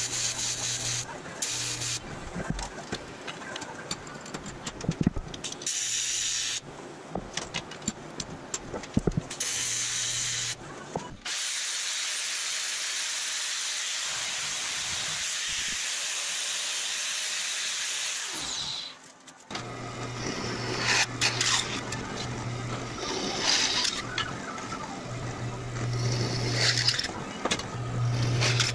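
AC TIG welder arc buzzing on aluminium in short runs, switching on and off, for about the first ten seconds. Then an angle grinder runs steadily for about seven seconds. After a brief pause a drill press runs and drills the aluminium through to the end.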